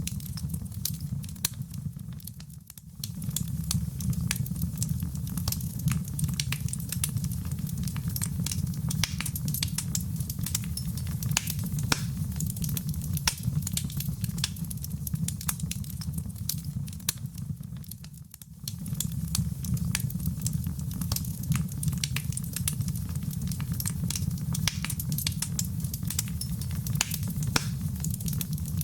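Wood fire crackling, with many sharp pops and snaps over a steady low rumble of burning. The sound dips briefly twice, about two and a half seconds in and again about eighteen seconds in, then returns.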